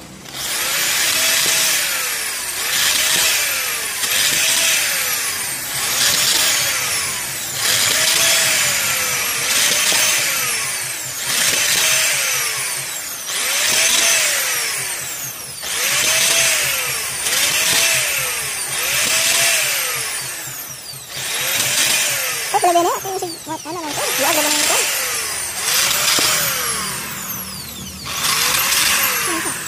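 Handheld electric drill running in repeated pulses, its motor speeding up and slowing down about every one and a half seconds as the trigger is squeezed and eased. A little past the middle, for a couple of seconds, the pitch wavers unevenly.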